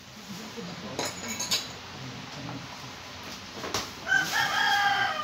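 A few light clinks and knocks of tools as someone works under a kitchen counter. Then, about four seconds in, a rooster starts a loud, drawn-out crow.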